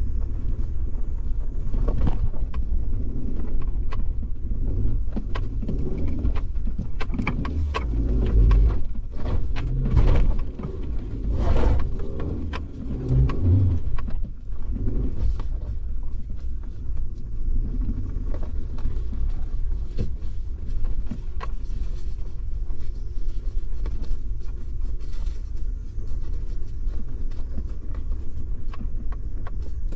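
Suzuki Jimny driving over a rough off-road track: a continuous low engine and road rumble with many knocks and clatters through the first half, settling into a steadier rumble later.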